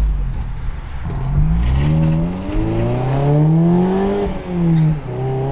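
Mazda ND Miata's four-cylinder engine through Hooker headers and an HKS exhaust, pulling hard: after a low rumble the revs climb, drop at a gear change a little over two seconds in, climb again, and fall back at a second shift near the end before running steady. The freshly fitted exhaust gives it a grumbly, noticeably louder note.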